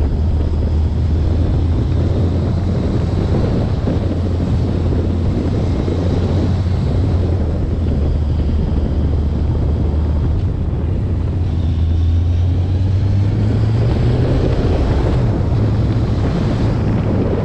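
Vehicle engine running steadily under way, with wind buffeting the microphone; the engine note rises slightly a little past the middle.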